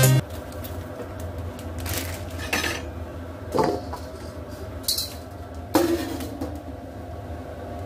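Cookware clatter on a wok: a few separate knocks and clinks as noodle blocks are handled in the pan, then a metal clank with a short ring a little before six seconds as a domed aluminium lid is set on the wok. A low steady hum lies under it all.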